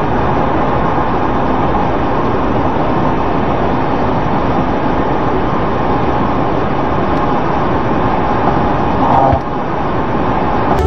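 Steady road and engine noise inside a semi-truck's cab at highway speed, about 70 mph, as picked up by the dashcam. The noise shifts briefly about nine seconds in, as the truck runs off the road onto the grass.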